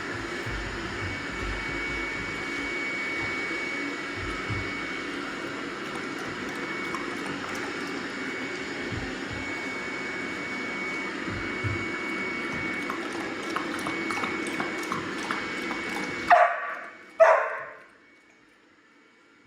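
Robot vacuum running with a steady whir and a thin high whine, cutting off suddenly near the end. Right after it stops, a dog gives two short barks.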